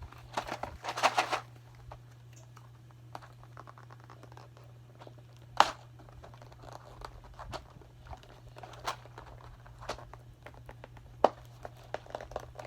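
Cardboard ammunition box being torn and pried open by hand: a burst of tearing and crinkling about half a second in, then scattered clicks and scrapes as the flaps are worked.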